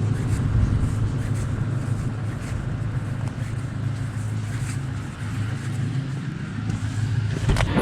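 Pickup truck engine idling steadily while it warms up, a low even hum. A sharp click or knock comes near the end.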